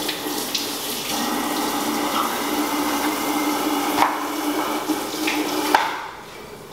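Kitchen faucet running steadily into the sink, shut off abruptly near the end. A couple of sharp knocks sound over it.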